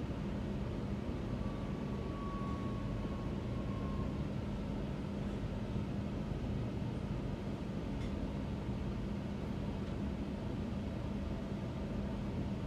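Shanghai Metro Line 16 train running on an elevated track, heard from inside the passenger car: steady running noise with a low hum.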